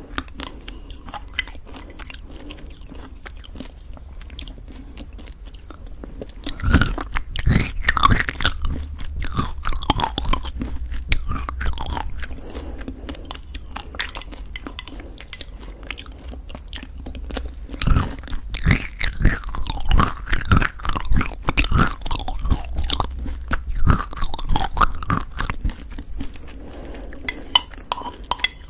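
Close-miked eating of thick yogurt mixed with homemade granola: chewing with crunching, and a wooden spoon scraping inside a glass tumbler. The chewing grows louder in two spells, from about seven seconds in and again from about eighteen seconds in.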